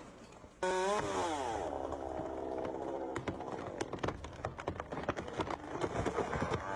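A petrol chainsaw comes in suddenly about half a second in, its engine pitch dropping as the chain bites into the wood, then runs steadily under load with many sharp clicks.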